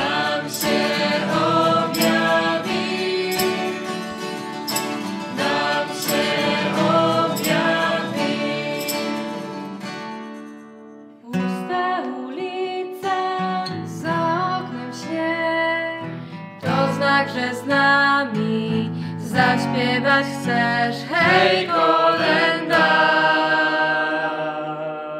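A group of voices singing a Polish Christmas carol to strummed acoustic guitar, with maracas shaking on the beat. The music fades out about ten seconds in, and the singing starts again a moment later.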